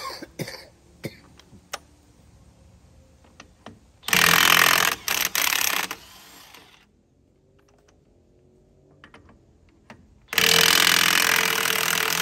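Cordless 20-volt DeWalt impact wrench hammering on a large truck lug nut in two bursts of about two seconds each: one about four seconds in, broken by brief trigger releases and trailing off, and another near the end. A few light clicks come before them.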